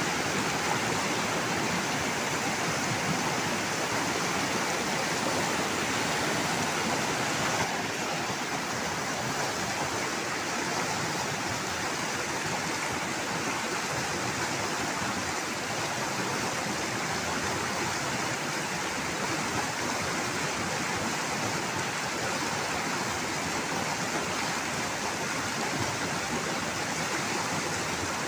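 Fast river water rushing over rocks and rapids: a steady, even rush of flowing water that eases a little about eight seconds in.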